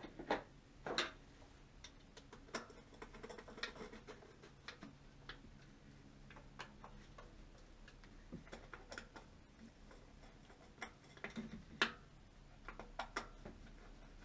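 Faint, irregular clicks and light knocks from hand-tool work on a Honda D16 engine's new distributor cap as it is seated and fastened. The loudest knocks come about a second in and again near the end.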